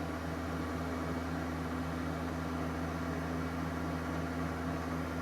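Electric mixer running steadily at speed, whipping cream towards stiff peaks.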